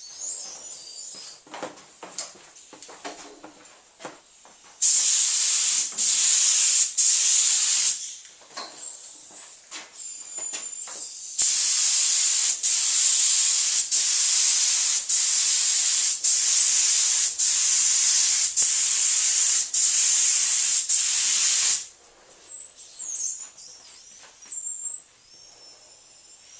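Paint spray gun hissing in long passes as a final coat of paint goes on: one pass of about three seconds starting about five seconds in, then a longer run of about ten seconds with brief breaks. Between passes it is quieter, with small clicks and handling noises and thin wavering whistles.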